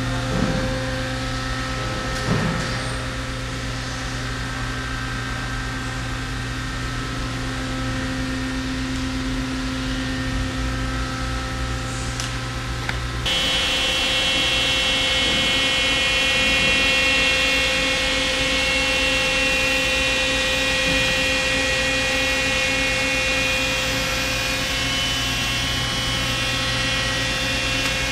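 Steady machinery hum from a powered-up Miyano LM-11 CNC lathe, with several steady tones held throughout. About 13 seconds in the sound changes abruptly: the low hum drops away and a higher-pitched whine takes over.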